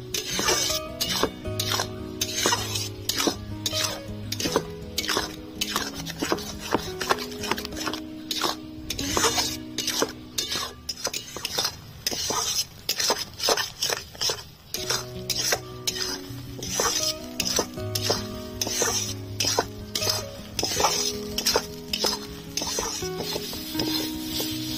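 Metal spatula scraping and knocking around a metal wok, stirring thick ridge gourd paste as it cooks down to a dry mash, with a faint sizzle. Background music with held notes plays throughout.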